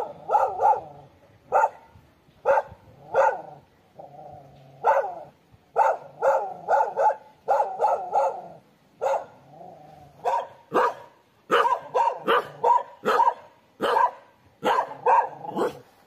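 A dog barking over and over in quick runs, loud and sharp, with two longer, lower calls among the barks.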